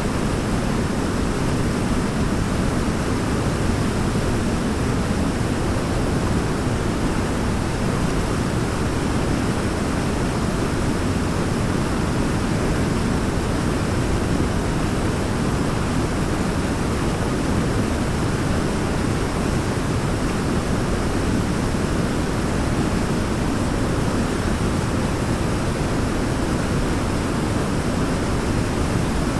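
Waterfall: water falling and rushing in a steady, even roar, deepest in the low end, with no change or break.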